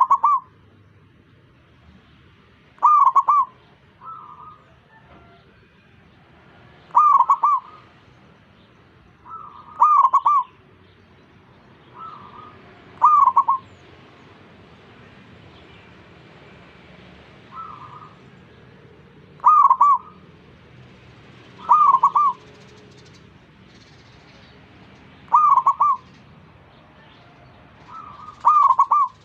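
Zebra dove (perkutut) cooing: short, loud coo phrases repeated about every three seconds, with fainter coos in between.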